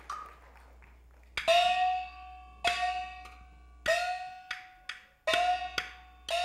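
Traditional percussion accompanying Taiwanese glove-puppet theatre: a ringing strike about every 1.2 s, five in all, each leaving a held tone, with short sharp clicks in between.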